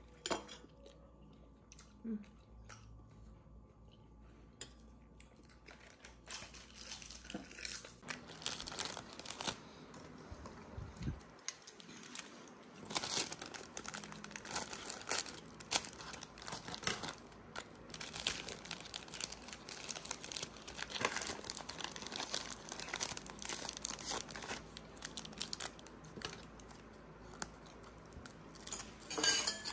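Irregular crinkling and rustling with small clicks, starting about six seconds in and going on unevenly; before that only a few faint clicks.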